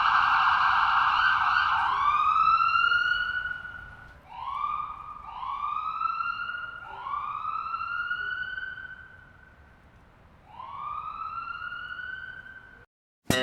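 Siren wailing: a steady high wail for about two seconds, then about five separate rising wails that grow fainter with pauses between them, ending in a sudden cut.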